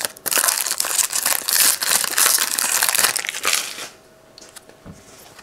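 Foil trading-card pack wrapper crinkling loudly as it is torn open and pulled apart by hand, stopping a little before four seconds in.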